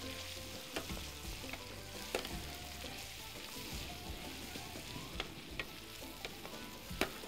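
Sliced onions sizzling as they fry in a metal pan, being cooked down until soft, while a wooden spoon and a perforated metal skimmer stir them. A few sharp clinks of the utensils against the pan.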